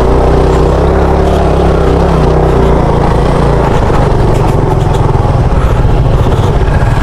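Motorcycle engine running steadily while being ridden, with a loud low rumble.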